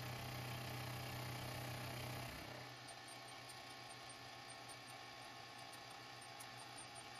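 Milling machine running, its face cutter skimming the sole of a brass plane body. A steady low hum drops to a quieter hum about two and a half seconds in.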